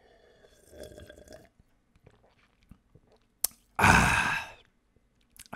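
A man's loud, raspy scream, "Aaahh!", about four seconds in, lasting under a second. It comes just after a sharp click, with softer vocal noises about a second in.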